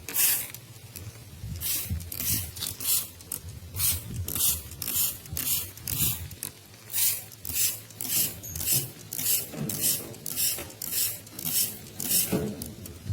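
Hand trigger spray bottle squirting water in a quick series of short hisses, about two squirts a second.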